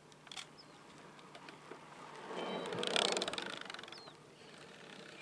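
Road bicycle passing close by: its tyre noise swells and fades, with a rapid ticking of the freewheel at its closest, about three seconds in.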